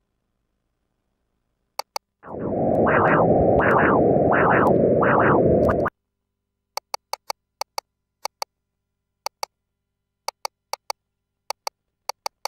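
Pulsed-wave Doppler audio from an ultrasound scanner sampling the left uterine artery: a loud, noisy pulse that surges with each heartbeat, about four beats, then cuts off abruptly. After it comes a string of short beeps, mostly in pairs, from the scanner's controls.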